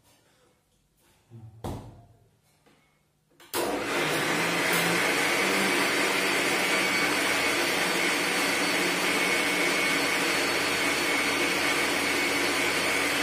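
Electric mixer grinder switching on about three and a half seconds in and running steadily with a whine, blending melon pulp with sugar. Before it starts, a single short knock.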